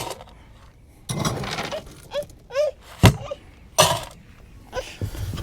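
Dog food being dished out: two short rattling pours of kibble, sharp knocks of a scoop or bowl at the start and about three seconds in, and a few short high vocal sounds in between.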